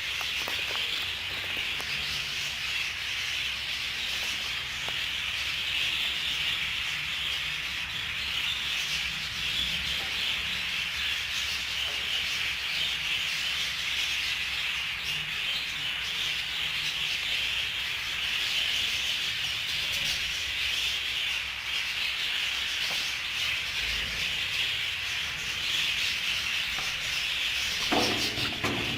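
Paint being brushed onto a wall: a steady, continuous rubbing of the bristles over the surface.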